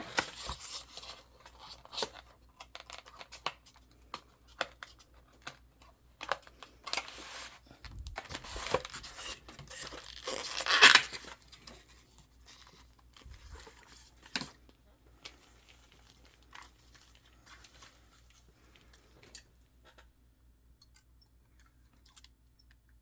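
Packaging being torn and crinkled by hand, with scattered clicks and light knocks of handling, as a boxed model locomotive is unpacked. The rustling is busiest in the first half and dies down to a few faint clicks near the end.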